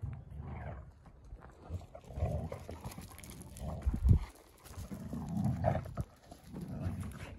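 Two dogs play-wrestling on bare dirt, with scuffling and dog noises. A low thump about four seconds in is the loudest sound.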